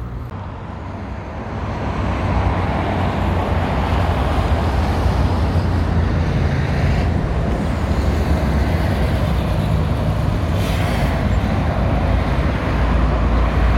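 Steady road traffic noise from cars and buses on a busy city street, a continuous low rumble with tyre hiss that builds over the first couple of seconds.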